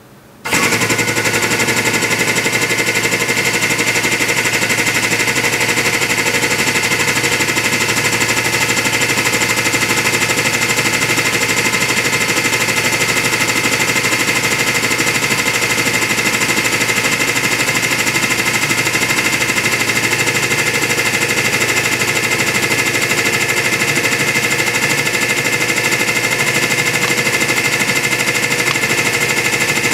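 Hydraulic press pump switching on suddenly about half a second in and running loud and steady while it drives the ram down, a constant hum with a strong high whine.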